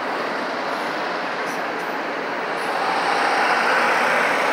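Freight train of autorack cars rolling past, a steady noise of wheels on rail. About three seconds in, a propane delivery truck drives past close by and the noise swells.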